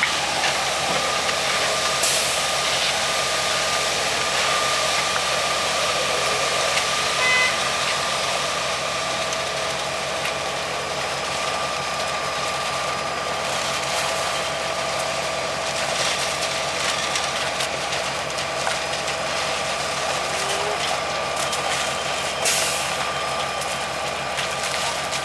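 Heavy diesel truck engines running steadily at a concrete pour: a constant engine drone with a steady whine over it.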